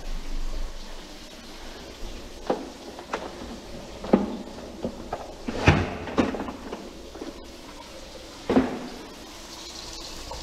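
A series of about six irregular knocks and clatters, the loudest near the middle, typical of cabinet doors and things being handled around a kitchen sink. Near the end, water starts to hiss as the tap runs.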